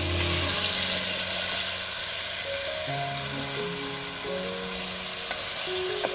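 Pieces of baby jackfruit (polos) with onion, green chilli and curry leaves sizzling as they fry in hot oil in a clay pot. The sizzle is loudest just after they go in and eases a little, with a light ladle click near the end.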